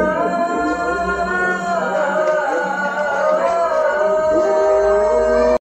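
Adhan (Islamic call to prayer) sung by a solo voice: the final 'La ilaha illallah' drawn out in a long, wavering melismatic line that cuts off abruptly near the end.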